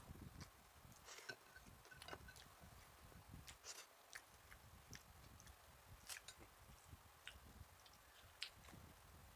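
Faint sounds of a person chewing and eating food by hand, with scattered small clicks and ticks.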